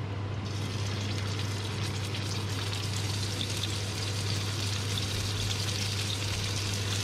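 Lamb chops sizzling in hot olive oil in a frying pan, the sizzle rising about half a second in as more chops go into the pan. Under it runs the steady low hum of the cooker hood fan.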